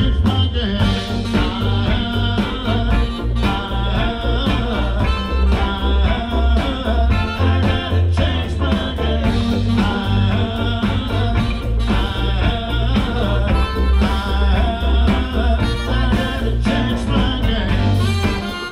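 Live blues-rock and soul band with a horn section: trumpet and saxophones over electric guitars, bass, keyboards and drums, playing continuously.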